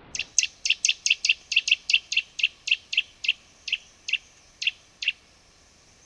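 Green woodpecker giving its laughing 'yaffle' call: a loud run of about nineteen sharp, ringing notes, fast at first and then spacing out, ending about five seconds in.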